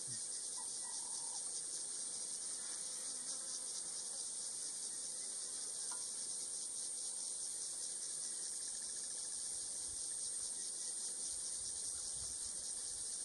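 Steady, high-pitched chorus of insects shrilling with a fast pulsing trill.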